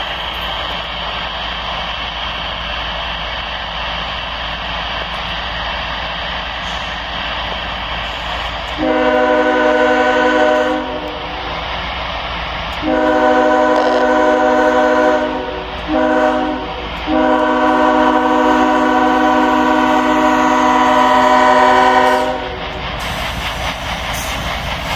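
Freight train's lead diesel locomotive sounding its multi-note air horn for a grade crossing in the standard pattern: two long blasts, a short one, and a final long one, starting about nine seconds in. Near the end the locomotive passes, with wheels clacking over the rails.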